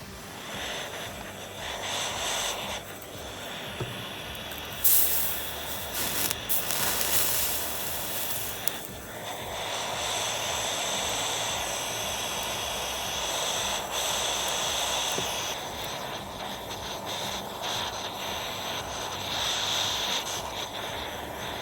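Jeweller's soldering torch flame hissing steadily as it heats the work to run the solder, with brief louder, higher rushes of hiss about five and seven seconds in.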